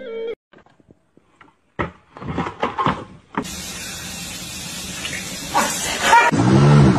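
Contents pouring in a steady rush out of a plastic bag, starting suddenly about three and a half seconds in, after brief voices. A pitched sound rises and falls near the end.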